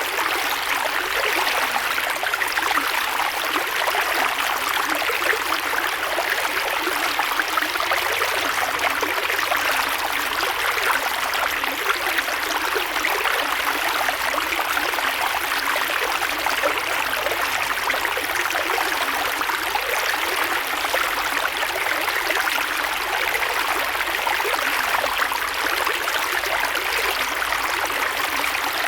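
Creek water flowing steadily over rocks: a constant rushing with fine babbling and trickling detail.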